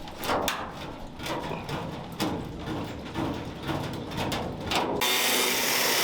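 Irregular knocks, clicks and scrapes of metal-cutting tools working on the sheet-steel sill of a classic Mini body shell. About five seconds in, a steady hiss cuts in suddenly.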